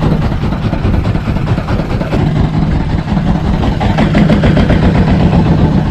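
Wooden fishing boat's engine running steadily at low speed, a fast even chug, as the boat is driven after a hooked fish.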